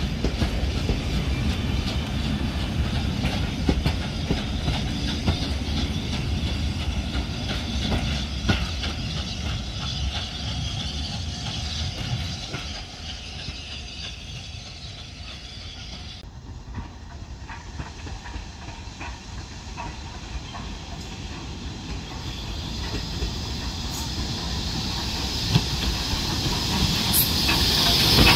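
A train of railway coaches rolling past and away over the rails, its rumble fading after about a dozen seconds. After a quieter stretch, BR Standard Class 4 tank locomotive 80151 draws near, and loud steam hissing comes in near the end.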